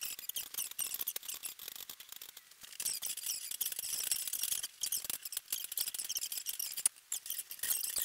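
Paint roller rolling wet paint onto pine boards: a dense, high-pitched sticky crackle that comes in strokes with short breaks between them.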